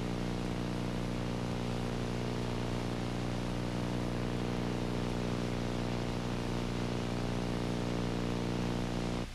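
Steady electrical hum with a stack of even overtones over tape hiss, unchanging until it cuts off sharply near the end.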